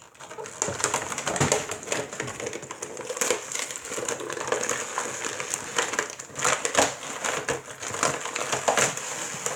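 Toy packaging crackling and crinkling with many small irregular clicks as small toy pieces are pulled and pried out of it.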